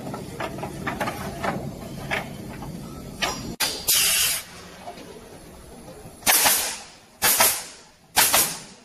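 Automatic pallet nailing machine at work: a light clatter of wooden boards and machine parts, then a sharp click and a short burst of compressed air about three and a half seconds in. From about six seconds, three loud hissing blasts of air come about a second apart from its pneumatic cylinders.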